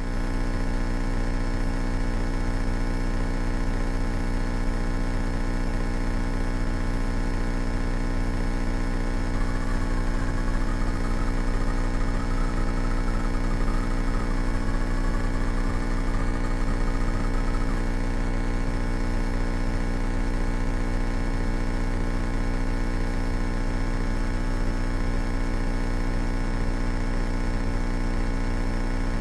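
Cabin drone of a 1970 Cessna 172K in cruise flight: its four-cylinder Lycoming engine and propeller running steadily at an even, unchanging pitch.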